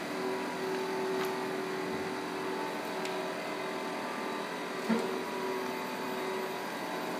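Paper-feeding machine running, a steady motor hum with a couple of held tones. A small click comes about a second in and a short knock just before five seconds.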